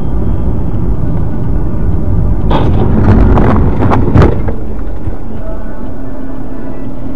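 Vehicle running with steady low road and engine rumble. About two and a half seconds in comes a loud burst of crunching noise, ending in a sharp bang just after four seconds: a road collision.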